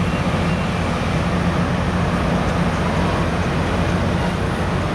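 Tri-Rail commuter train's diesel locomotive running as the train pulls out of the station, a steady, even engine hum.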